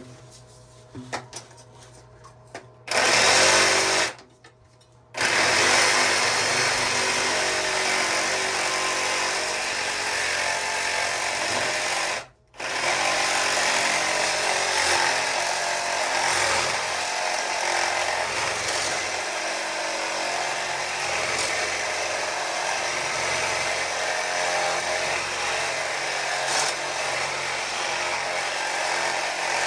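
Electric demolition hammer chipping concrete, running in long stretches: it starts about three seconds in, stops briefly twice, then keeps going.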